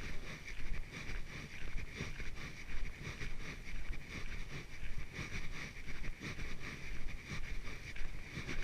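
Footsteps of a person walking on a trail, about two steps a second, with wind rumbling on the microphone and a steady hiss behind.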